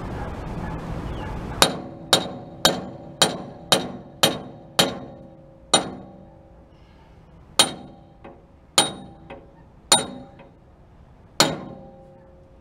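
Hand hammer striking a steel pintle hitch to drive its shaft home into the sleeve, each blow ringing metallically. About a dozen blows: a quick run of eight at about two a second, then four slower, heavier-spaced ones with light taps between.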